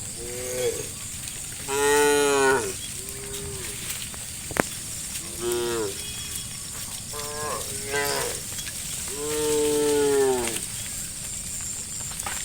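Cattle in a herd mooing repeatedly, about six separate calls, the loudest about two seconds in and the longest near the end. A single sharp click comes midway.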